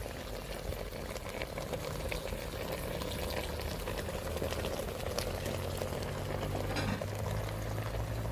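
Pot of fish and lobster stew simmering, a steady bubbling with small pops. A low steady hum comes in about halfway through.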